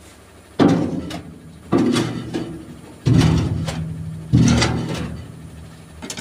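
Steel shovel striking and scraping the steel tipper body of a dump truck, four hits roughly a second apart, each leaving the hollow steel bed ringing. The blows are knocking loose wet iron fines that have stuck to the bed.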